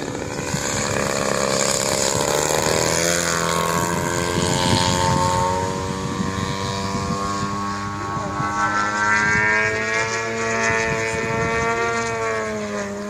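Yak 54 radio-controlled model airplane's 120 cc engine and propeller running in flight, a steady engine drone whose pitch drops about three seconds in and then drifts up and down as the plane manoeuvres.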